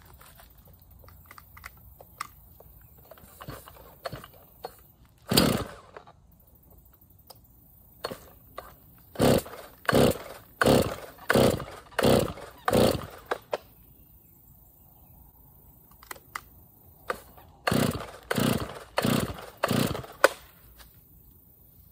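Stihl MS311 two-stroke chainsaw being pull-started: the recoil starter cord rips out and the engine turns over in short strokes, a single pull, then a quick run of about seven, then about five more near the end. The engine never catches; it fails to start although the new ignition coil makes spark.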